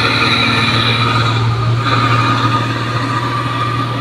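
Diesel engine of a heavy tarp-covered truck with two rear axles, working steadily as it climbs the hill past the camera. It is a deep, steady drone, and its higher tones change about two seconds in.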